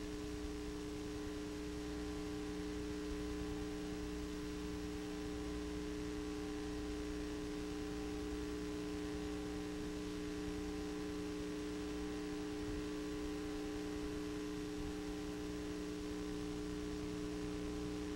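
Steady electrical mains hum on the broadcast audio, with a faint hiss and no programme sound. It is a low, unchanging buzz made of a few fixed tones.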